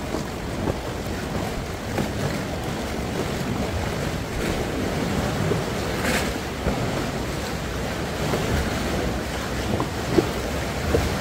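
Choppy sea waves washing, with wind buffeting the microphone and a brief louder burst about six seconds in.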